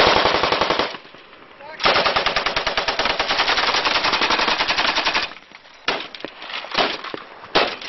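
Automatic machine-gun fire: a burst that stops about a second in, then a long continuous burst of about three and a half seconds, then several short bursts near the end.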